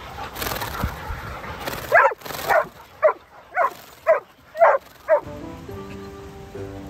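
A dog barking seven times in quick succession, about two sharp barks a second. Background music comes in near the end.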